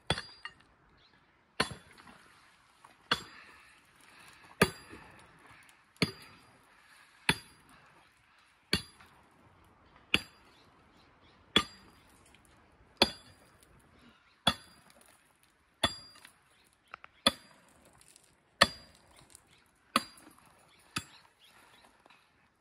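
Mattock striking rock and hard soil in a steady rhythm, one sharp clinking blow about every second and a half, chipping rocks out of the trail tread.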